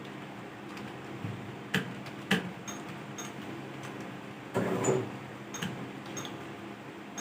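Computer keyboard keys clicking sparsely over a steady room hum, with two sharper clacks about two seconds in and a short louder rattle about halfway through.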